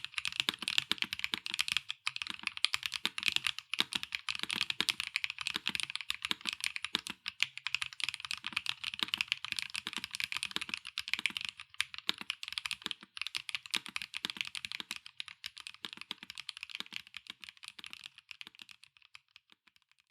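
Fast, continuous typing on a Bauer Lite gasket-mount mechanical keyboard with HMX Glaze Jade linear switches, an aluminium plate, no foam and PBT/ABS double-shot keycaps. The keystrokes come in a dense rapid stream, then thin out and fade away near the end.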